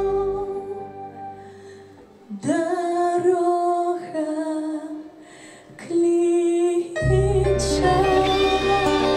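Female vocalist singing a Belarusian-language pop song live into a microphone with a band. Held chords fade out, she sings long held notes over sparse accompaniment, and the full band with bass comes back in about seven seconds in.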